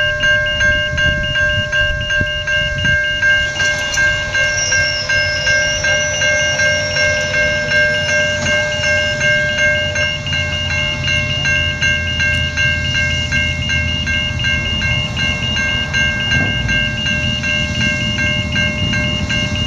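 Steam locomotive 3801, a 4-6-2 Pacific, approaching with its train; its low rumble builds toward the end. A steady ringing tone with a quick regular pulse runs over it throughout.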